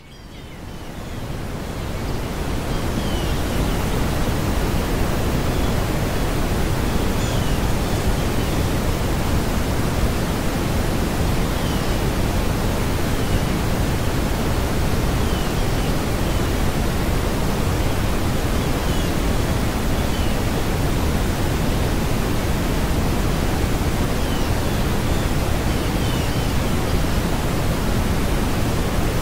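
Steady rushing noise that fades in over the first few seconds and then holds even, with faint short high chirps now and then.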